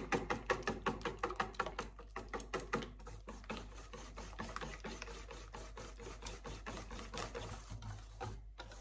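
Wire whisk beating crepe batter in a stainless steel bowl: quick rhythmic clicks of the wires against the metal, about four a second, sharper in the first few seconds and softer and more even after that.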